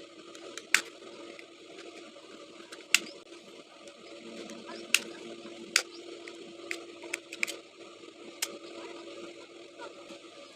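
Scattered sharp clicks and taps of small parts and tools being handled, about eight in all and irregularly spaced, over a steady faint hum.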